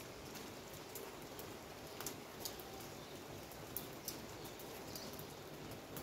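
Steady rain falling, a constant hiss, with irregular sharp taps of drops striking a hard surface close by, several of them clustered about two to four seconds in.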